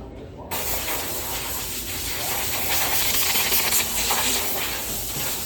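A steady, loud hiss of compressed air from a blow nozzle, starting suddenly about half a second in, as dust is blown off garage door hinges.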